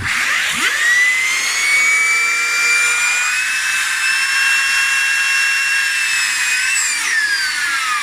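Small Sunon server cooling fan spun up by a blast of air from a blower nozzle: a high whine rises quickly to a steady pitch over the rush of air, then falls away as the fan slows near the end.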